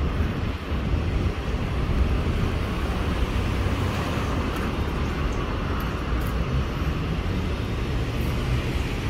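Steady city street noise: a continuous low rumble of road traffic.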